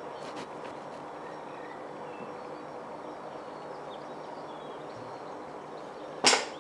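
Steady outdoor background, then a single sharp shot from a Swiss Arms Tac1 .22 air rifle near the end.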